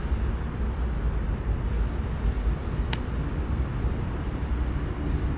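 Steady low rumble of outdoor background noise, with one sharp crack about three seconds in.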